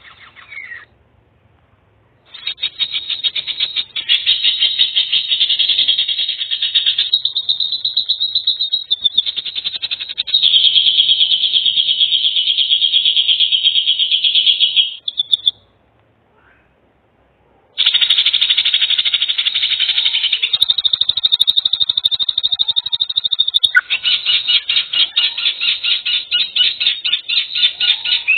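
An animal's rapid, buzzy trilling calls in long runs of several seconds each, broken by two short pauses.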